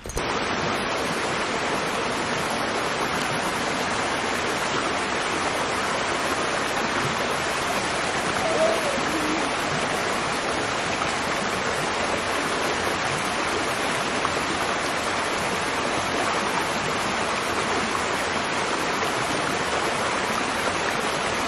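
Small mountain creek rushing over rocks and a low cascade: a steady, even rush of water.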